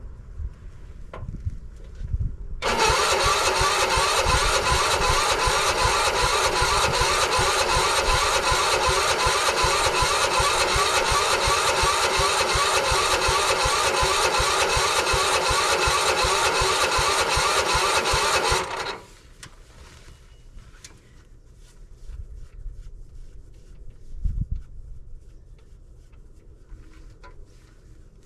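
Weedeater lawn tractor's starter cranking the cold engine steadily for about sixteen seconds without it catching, then cutting off abruptly. The engine will not start in single-digit cold with a frozen throttle.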